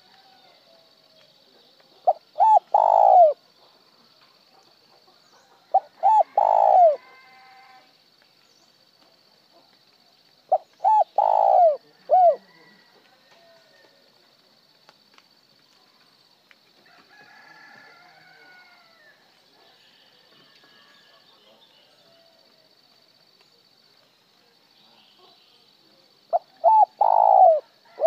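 Spotted dove cooing: four phrases, each of a couple of short notes followed by a longer drawn-out coo, with long pauses between. Only the third phrase ends with a short extra tail note; the others end plain, without one.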